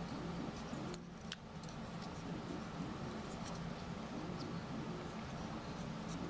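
Small wooden puzzle pieces clicking and sliding against each other as they are fitted together by hand, with two sharper clicks about a second in, over a steady room hum.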